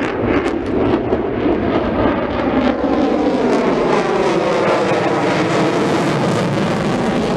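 Aircraft flying past with a loud, continuous rushing noise. Its tone sweeps and phases in the second half as it goes by.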